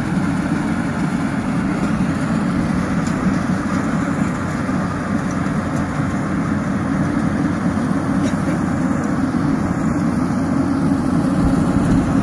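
Yanmar YH 8500 rice combine harvester running steadily, an even engine and machinery drone.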